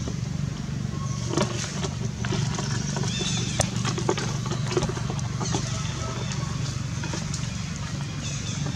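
A steady low engine hum, with faint high chirps that come and go and a few light clicks.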